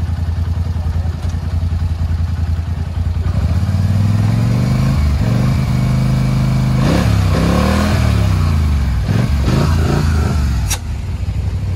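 Off-road vehicle engines idling steadily, then revving up and down for several seconds, with more than one engine note rising and falling at once. There is rattling in the middle and a sharp click near the end, before settling back to idle.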